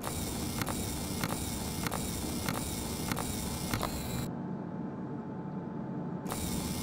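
Sci-fi machine sound effects: a steady low hum under a hiss, with a regular click about every 0.6 s. A little past halfway the hiss and clicks drop out, leaving only the hum, and they come back near the end.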